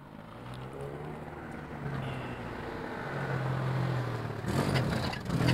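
Car engine running at low speed and getting steadily louder as it comes closer, with a broad rushing noise rising over it near the end.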